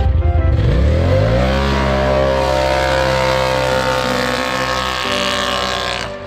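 Turbocharged Polaris RZR side-by-side's engine revving up as it pulls away, then holding a steady pitch as it drives off, growing slightly fainter near the end.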